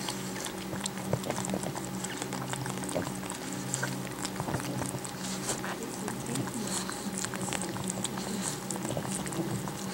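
Pug mother licking and nosing her newborn puppies: a continuous run of small, irregular wet clicks and smacks, over a steady low hum.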